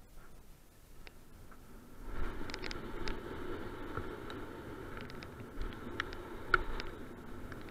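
Canyon Strive enduro mountain bike rolling fast down a dirt trail: tyre noise on loose dirt and gravel, with scattered clicks and rattles from the bike, picking up about two seconds in.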